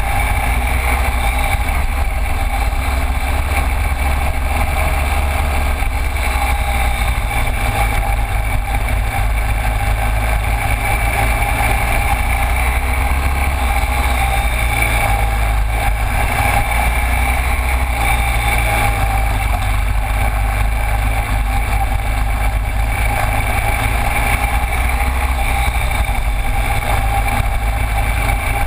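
Cagiva Elefant 900's V-twin engine running steadily as the motorcycle rides slowly along a gravel track, recorded close to the front wheel, with a heavy low rumble throughout.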